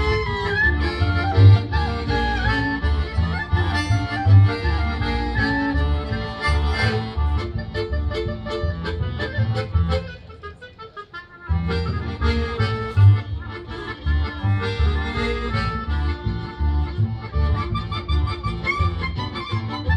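Live band of violin, double bass, accordion and clarinet playing a tune with a steady bass pulse. About halfway through, the band drops to a brief, sparse break, then comes back in together.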